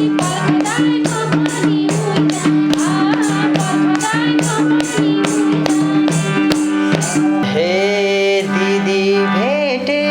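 Instrumental interlude of Nepali dohori folk music: a hand drum keeps a steady beat of about three strokes a second under melodic instrument lines. About seven and a half seconds in, the drumming drops out and a sustained, sliding melody carries on alone.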